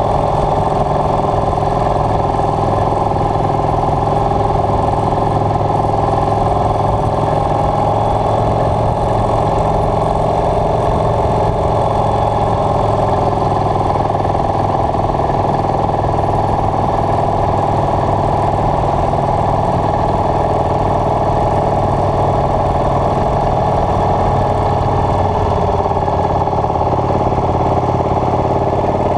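Motorcycle engine running steadily at cruising speed while pulling uphill, heard from on the bike.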